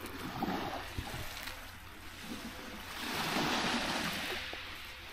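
Small waves washing onto a pebble beach. One wave swells into a louder hiss about three seconds in, then fades.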